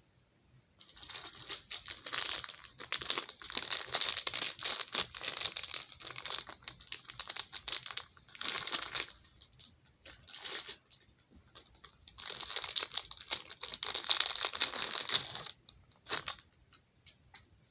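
Pleated plastic monkey noodle fidget tubes crinkling as they are handled, stretched and squeezed, in two long stretches of dense crackling with shorter bursts between and a last brief one near the end.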